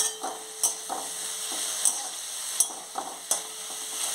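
Sliced onions sizzling in oil in a kadai, stirred with a metal spatula that scrapes and taps against the pan several times.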